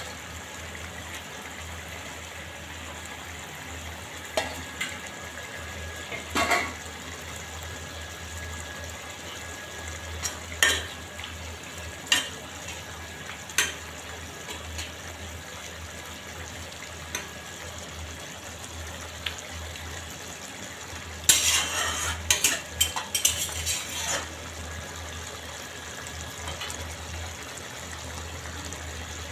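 Bata fish curry simmering and bubbling in a pan, with a spatula now and then knocking and scraping against the pan in single sharp clicks and a dense run of clicks about three-quarters of the way through.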